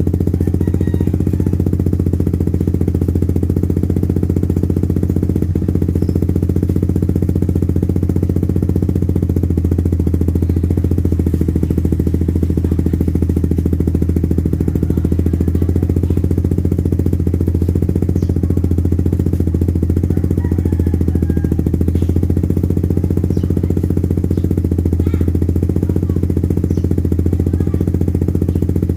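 Suzuki Raider 150 Fi single-cylinder four-stroke engine idling steadily through a VMAX aftermarket exhaust, a low, even, pulsing note that holds a constant pitch.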